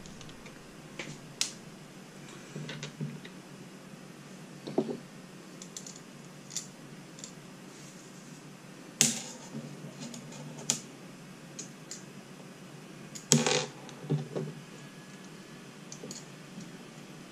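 Small hardware and parts being handled on a workbench: scattered light clicks and taps, with louder knocks about nine and thirteen seconds in.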